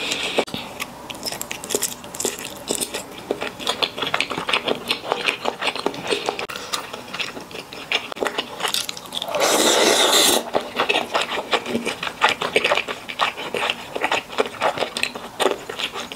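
Close-miked eating sounds: wet chewing and mouth clicks as sesame-sauce malatang noodles and fatty beef slices are eaten. A loud slurp lasting about a second comes a little after nine seconds.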